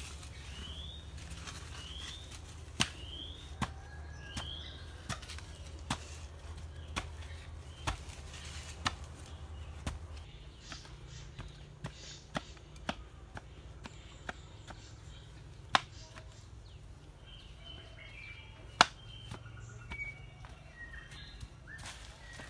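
Hand tools, a hoe and a wooden tamper, striking packed soil: knocks about once a second for the first several seconds, then scattered. Birds chirp between the strikes, with rising chirps early on and a cluster of calls near the end.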